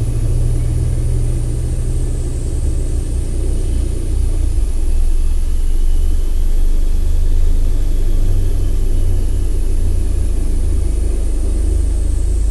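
Loud, low rumbling drone that steps down in pitch about four and a half seconds in and back up a little about three seconds later, with a faint high whine wavering slowly above it.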